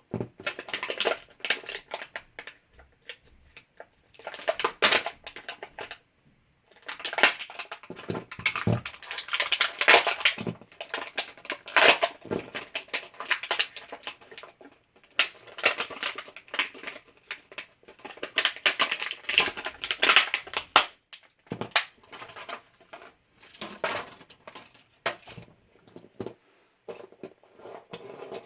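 Plastic toy packaging being cut and pried open by hand, stiff plastic crinkling and cracking with scattered clicks. It comes in bursts with short pauses between them.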